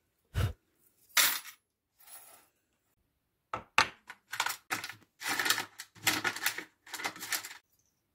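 Cast-iron bench vise being loosened and re-tightened to reposition a small wooden workpiece: a knock, then a series of short metallic clanks and scraping rattles.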